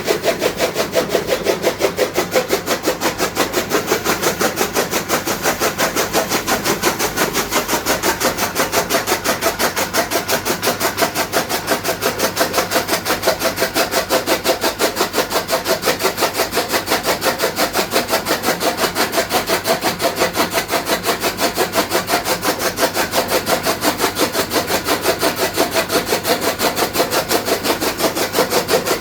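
Motor-driven chaff cutter (toka machine) running, its blades chopping fodder in a fast, even rhythm.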